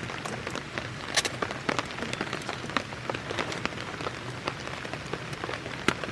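Steady rain falling, with many separate drops striking close by at irregular moments; a louder drop lands just after a second in and another near the end.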